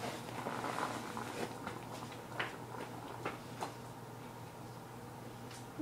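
Scattered faint clicks and knocks, about half a dozen spread irregularly, from someone moving about out of view, over a steady low hum.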